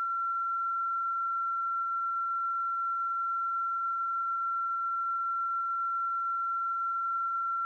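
A single steady high-pitched tone, unchanging in pitch and loudness, with nothing else heard: the unexplained 'weird eew sound' on the Merapi recording.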